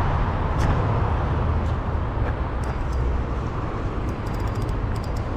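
Steady rumble of road traffic, with a run of faint quick clicks near the end.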